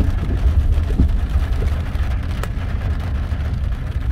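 Car's engine and road noise heard from inside the cabin: a steady low rumble while driving slowly along a wet street, with one faint click about two and a half seconds in.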